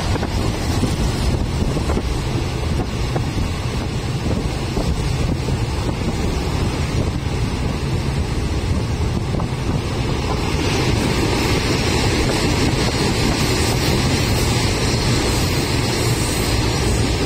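Passenger train running, heard from inside a carriage at the window: a steady rumble of the wheels under a rush of wind noise, growing brighter and a little louder about ten seconds in.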